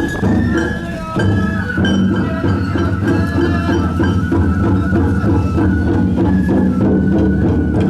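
Japanese festival music with drumming and a sustained melody, in a steady rhythm.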